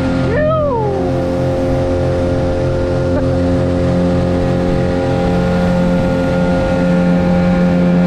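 Outboard motor on a small aluminium boat running steadily under way. A brief cry rising then falling in pitch cuts in about half a second in.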